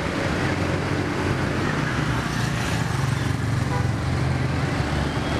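Mitsubishi Canter truck's diesel engine idling steadily.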